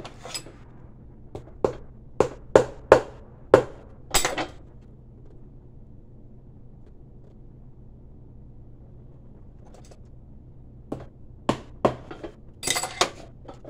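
Hammer tapping a new heel onto a shoe: a run of about seven sharp taps in the first few seconds, then a pause, then another short run of taps near the end.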